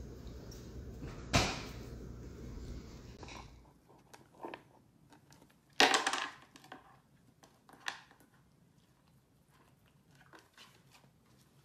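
A dachshund biting into an ice cube: one sharp crunch about a second and a half in. This is followed by a few shorter crunches and clicks, the loudest a little past halfway.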